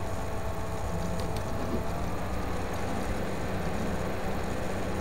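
Steady low hum and hiss of background noise, with a couple of faint clicks about a second and a half in.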